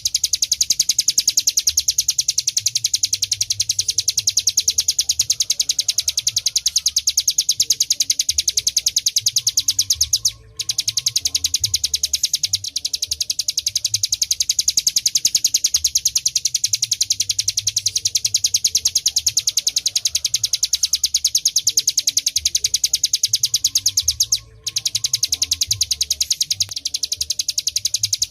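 Ciblek gunung song: a rapid, evenly repeated high chirping that runs on without pause, broken by two short gaps, about ten seconds in and near the end.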